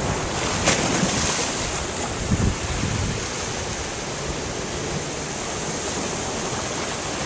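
Storm surf washing and breaking against a rock seawall, a steady rushing noise, with gusting wind buffeting the microphone. A short sharp tap comes less than a second in.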